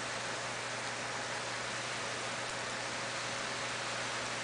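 Heavy thunderstorm rain pouring down, a steady even hiss with no breaks.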